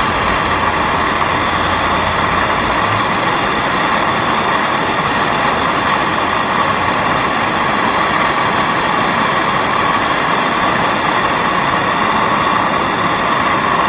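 MAP gas torch flame burning with a steady, loud hiss while it heats a steel socket to red hot. A low rumble underneath drops out about three seconds in.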